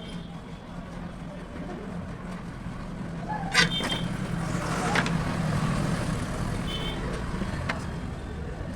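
Road traffic hum that swells for a few seconds in the middle, as a vehicle passes, with a sharp click about three and a half seconds in.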